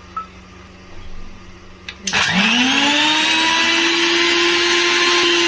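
Electric mixer grinder switching on about two seconds in, its motor whine rising quickly in pitch and then running steadily at full speed. It is grinding roasted cashews and onion with a little water into a paste.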